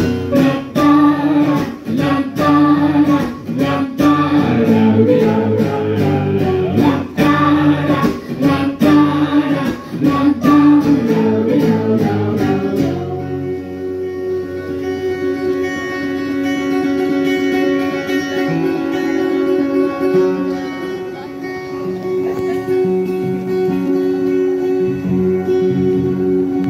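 Live band instrumental passage with an acoustic guitar strummed hard in a steady rhythm. About thirteen seconds in, the strumming gives way to long held, droning tones over a soft low pulse.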